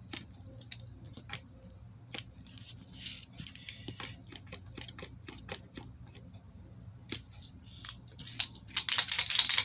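Paint marker clicking repeatedly as it is being activated to start the paint flowing, with irregular sharp clicks. About nine seconds in, a louder, denser burst of clicking and rattling.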